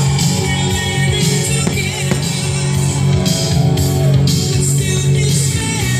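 Music: a song with a singing voice over a steady, strong bass.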